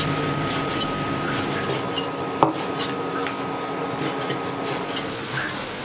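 Cleaver chopping cleaned pork intestines on a wooden cutting board: an irregular run of knocks of the blade on the board, one louder knock about two and a half seconds in.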